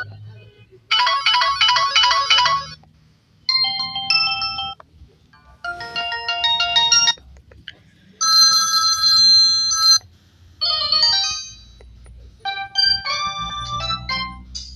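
Samsung GT-E1195L basic mobile phone playing its ringtones one after another through its loudspeaker, about six different short electronic melodies, each cut off after a second or two. This is the sound of stepping through the phone's ringtone list and previewing each tone.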